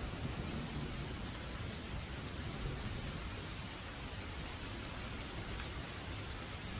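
Waterfall rushing steadily, an even hiss of falling water over a low rumble that eases off in the first moment.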